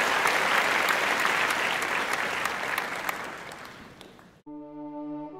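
Audience applause, dense clapping that fades away over about four seconds. It cuts off near the end, and music with held notes begins.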